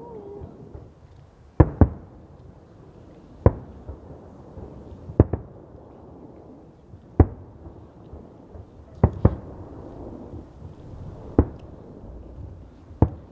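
Fireworks going off: about ten sharp bangs at irregular intervals, some in quick pairs, over a low background hum.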